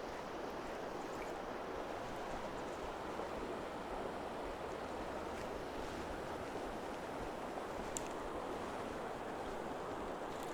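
Steady rush of flowing river water, with a single faint click about eight seconds in.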